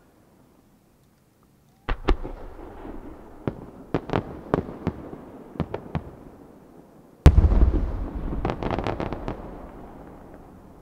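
Aerial firework shells bursting: a sharp bang about two seconds in, followed by a string of separate pops. Then the loudest boom, about seven seconds in, with a long rolling echo and a quick flurry of crackling reports that fades away near the end.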